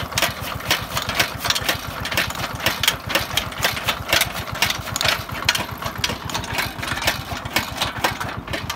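Single-cylinder 8 hp diesel engine running steadily with a rapid, even thudding beat, driving a toka chaff cutter through a line shaft. Sharp, regular clatter from the cutter's blades chopping green fodder rides over the engine.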